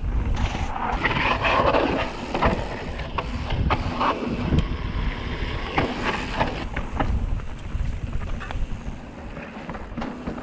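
Mountain bike rolling fast down a bare rock slab: tyre rumble over the rock with chain and frame rattle and several sharp knocks, and wind rushing over the helmet-mounted microphone.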